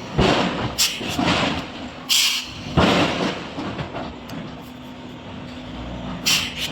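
Industrial forge machinery giving short bursts of hissing, with a heavier rush about three seconds in, over a faint steady hum.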